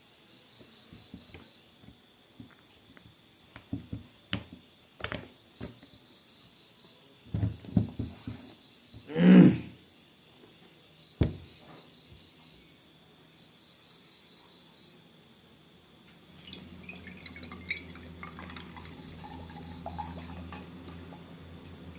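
Metal screw cap of a whisky bottle twisted open with a run of small clicks and crackles, then a louder rustle and a sharp click. From about sixteen seconds, whisky is poured from the bottle into a glass tumbler with a steady gurgling splash. Crickets chirp faintly in the background.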